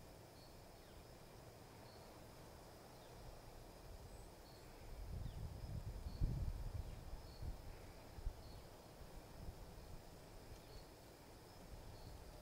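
Faint outdoor field ambience: a short high chirp repeats every second or two. Low rumbling on the microphone comes and goes for a couple of seconds from about five seconds in.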